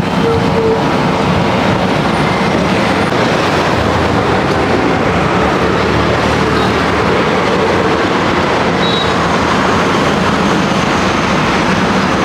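Steady, loud road traffic noise, with the engines of passing cars and motor scooters running together into one continuous rumble.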